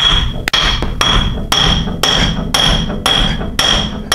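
Hammer blows on steel, about two a second, each with a short metallic ring, knocking a stuck part free from a Land Rover Defender 90's rear axle hub.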